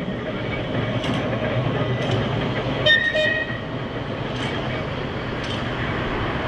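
Manx Electric Railway Winter Saloon tram No.21 running on a curve: a steady low rumble with uneven clicks as the wheels pass over rail joints. A brief high wheel squeal comes about three seconds in.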